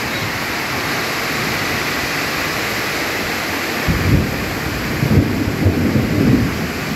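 Heavy rain pouring down steadily, with a low, uneven rumble of thunder coming in about four seconds in.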